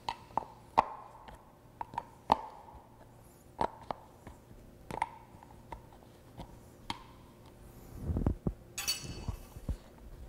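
Metal wrench clicking and clinking on a liquid-tight cord grip as it is worked loose from a pump's level-control housing: irregular sharp clicks, each with a short ring. About eight seconds in comes a duller thump, then a brief rasp.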